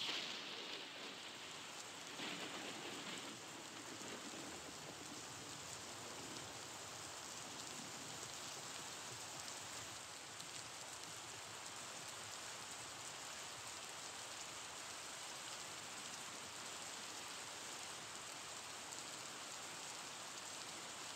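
A steady, even hiss throughout. It rises a little right at the start and again about two to three seconds in, while sticky bread dough is worked by hand in a metal pot.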